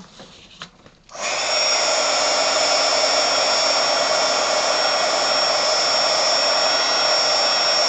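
Craft heat gun switched on about a second in and running steadily, its fan blowing with a high, steady motor whine, used to heat the wax on a waxed canvas.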